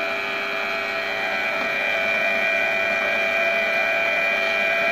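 Oberhof Breth C-34 planetary stand mixer running on its first speed, its motor giving a steady whine as the dough hook kneads flour and liquid into dough.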